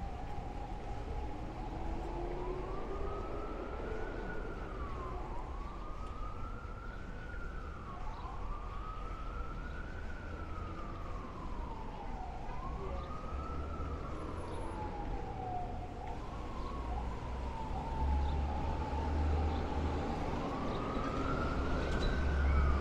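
Emergency vehicle siren wailing, its pitch rising and falling slowly about every three seconds and holding steadier for a few seconds past the middle. Low street noise underneath grows louder over the last few seconds.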